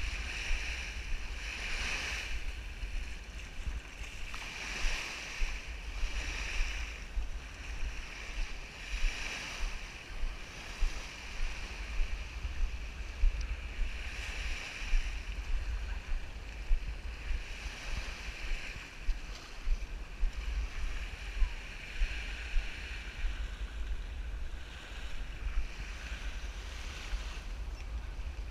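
Small waves lapping and washing at the shoreline, swelling and fading every second or two, under a steady low rumble of wind on the camera's microphone.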